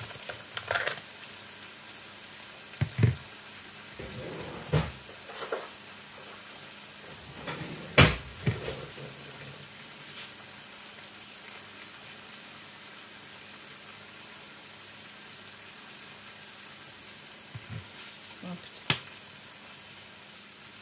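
Tofu, peas and onion cooking in a frying pan with a steady sizzle, broken by scattered knocks and clatters of handling and stirring. The loudest knock comes about eight seconds in.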